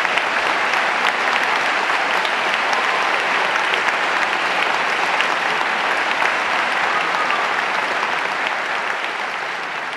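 Audience applauding: a dense, steady patter of clapping that begins to fade near the end.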